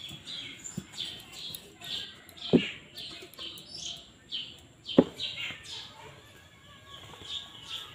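Short, high, falling chirps repeating about twice a second from a small animal in the garden, a bird or a palm squirrel. Two sharp knocks cut in, the louder one about five seconds in.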